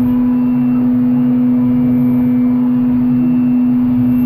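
Okuma MU400 VII five-axis machining center's spindle running at constant high speed while a CoroDrill 860-NM drill cuts aluminium: a loud, steady whine over the hiss of flood coolant spraying.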